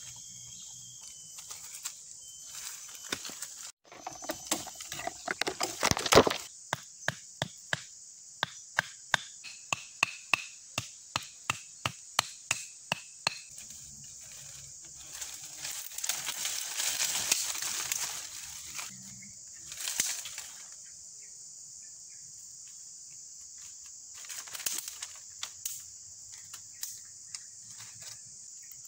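Machete chopping wood in a quick, regular run of sharp strikes, about two to three a second, for several seconds. Later come rustling and a snap of dry sticks being broken and handled. A steady high drone of cicadas or crickets runs underneath throughout.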